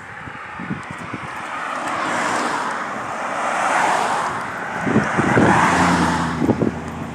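Road traffic: cars passing by, their tyre and engine noise swelling and fading about three times. Near the end a steady low engine hum comes in, with a few low thumps.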